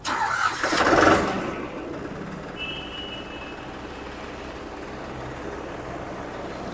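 Farmtrac 45 Super Smart tractor's diesel engine starting, loudest about a second in, then settling into a steady idle. The engine sounds like a Ford 3600's, since the tractor uses the same engine. A short high beep comes about three seconds in.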